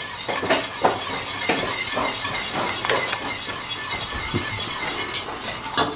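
Wire whisk clicking and scraping rapidly against the sides of a stainless steel pot, stirring corn flour into hot water to make polenta. The clicks come in quick succession over a steady hiss.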